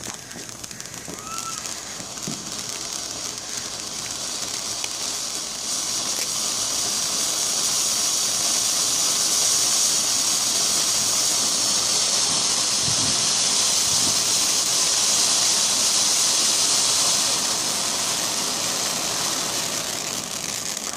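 Ground fountain firework spraying sparks with a steady, high hiss that grows louder over the first several seconds and eases slightly near the end.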